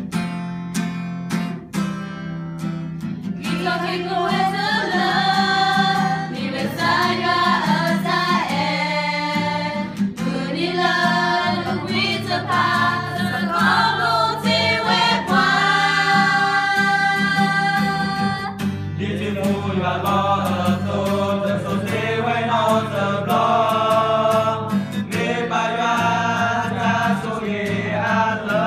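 A group of young voices singing a song together to a strummed acoustic guitar. The guitar is heard alone for the first few seconds before the singing comes in.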